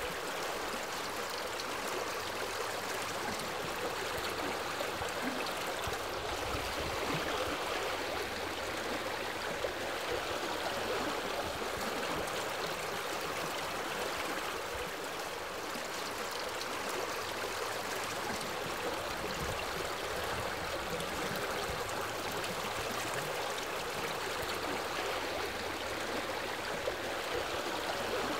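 Small freshwater lake waves washing steadily onto a sandy shore.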